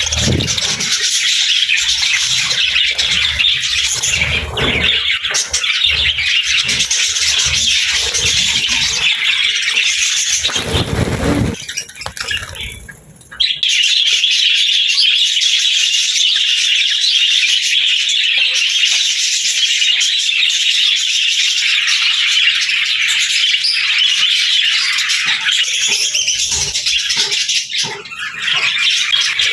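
A flock of budgerigars chattering and chirping continuously, with a few low bumps in the first half and a brief lull about halfway through.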